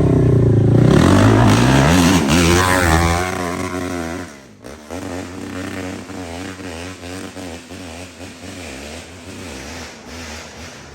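Dirt bike engine revving hard close by, its pitch climbing and wavering. About four seconds in the sound breaks off abruptly and drops to a quieter engine that keeps revving up and down.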